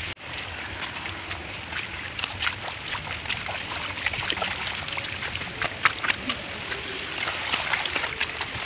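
Footsteps of people walking in sandals along a dirt path through grass: many irregular short clicks and scuffs, over a steady hiss.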